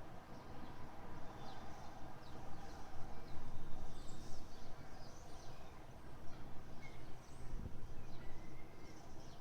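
Small birds chirping repeatedly over a steady background noise with a low hum.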